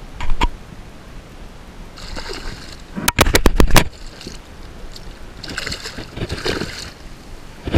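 A hooked summer flounder (fluke) splashing at the water's surface as it is brought in by hand. There is a quick run of sharp knocks about three seconds in, and a spell of splashing a couple of seconds later.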